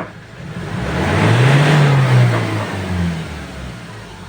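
Ford Ranger XLT engine revved once, its pitch rising and then falling back toward idle over about three seconds. The engine is running again after a no-start caused by a loose fuel pump terminal.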